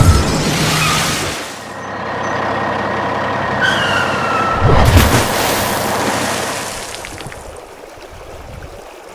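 Added vehicle sound effects: twice, about four seconds apart, a short falling squeal followed by a heavy low thud, as a toy truck plunges off a ledge into water; afterwards a rushing noise fades away.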